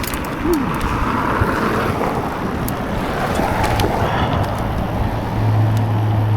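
Wind rushing over the microphone and tyre noise as a mountain bike rolls down a road, with a few sharp ticks, and a low steady hum coming in near the end.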